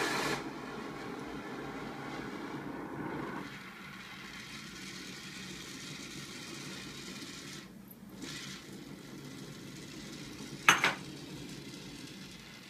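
Oxy-acetylene torch flame hissing steadily while it is being adjusted, louder at first and settling into a lower, even hiss about three and a half seconds in. A single sharp click comes near the end.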